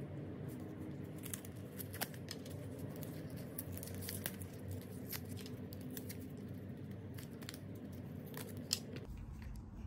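Hands handling a coiled white charging cable and its paper wrap: scattered crisp rustles and small sharp clicks.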